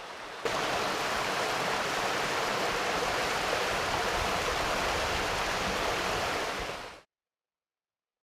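Steady rushing of a waterfall cascade, falling water heard close by, that fades out shortly before the end into silence.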